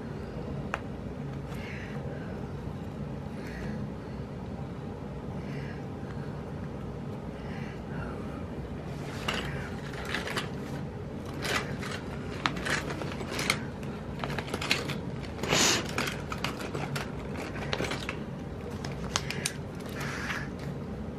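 Hands working planner sticker sheets and paper: a run of small clicks, scrapes and rustles, busiest in the second half with the loudest scrape just past the middle, over a steady low hum.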